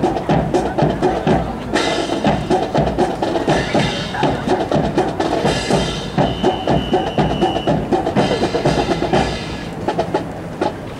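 Percussive music with a quick drum beat accompanying a rifle drill routine, dying away about nine seconds in. A steady high tone sounds briefly partway through.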